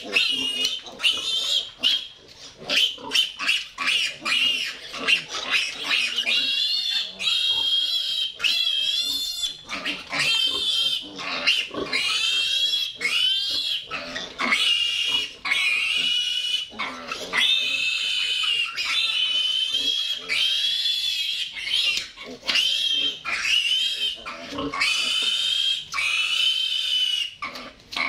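A piglet squealing loudly and almost without pause in high, wavering screams, broken only by brief gasps, while it is held and restrained for castration.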